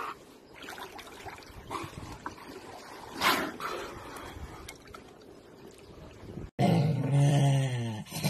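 Water sloshing and lapping around a beluga whale as it is hand-fed a fish, with one short rushing burst about three seconds in. After a sudden cut near the end, a loud low-pitched vocal sound takes over.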